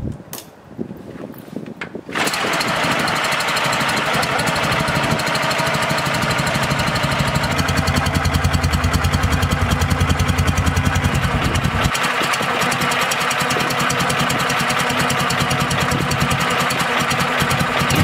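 Soviet M-72 motorcycle's side-valve flat-twin engine starting, catching about two seconds in after a few clicks, then running with an even exhaust beat that is louder and deeper from about six to twelve seconds in.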